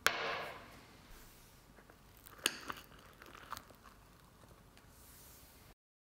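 A spoon going into a glass of trifle: a few soft clicks against the glass and crunches through the ice cream and crunchy stroopwafel pieces, after a brief scuff as the glass is handled at the start.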